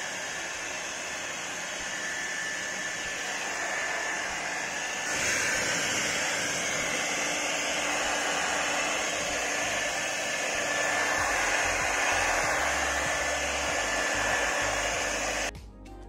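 Havells HD3225 1800 W hair dryer blowing steadily at its single fixed fan speed: a rushing hiss with a faint whine in it. It gets a little louder about five seconds in and stops abruptly near the end.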